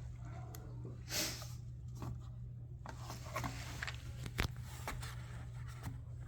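Scattered small clicks and rubbing from a handheld digital manifold gauge being handled and its buttons pressed, over a steady low hum.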